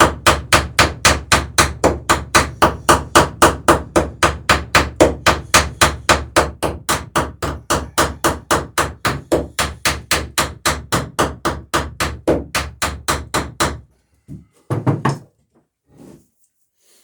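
Hammer peening the cut end of a copper boat rivet over its burr, mushrooming it to lock the burr on. A fast, even run of light blows, about five a second, stops about three quarters of the way through, followed by a single short knock.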